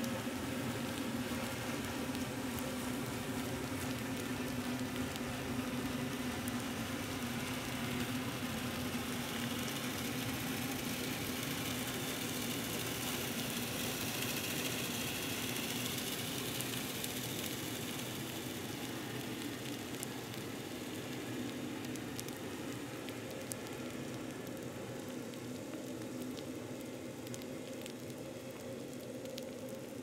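Underwater hydrophone recording of the MSC Grandiosa cruise ship's propellers as she moves at slow speed: a steady hum of several fixed low tones under a dense hiss with scattered faint clicks, easing off slowly in the second half.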